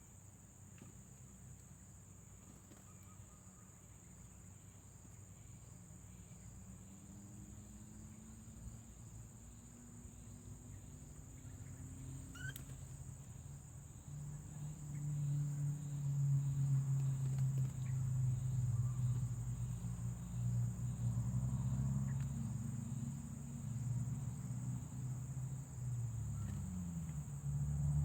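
Steady high-pitched buzz of insects, crickets by the sound of it, running throughout. From about halfway a low droning hum comes in and grows louder, becoming the loudest sound.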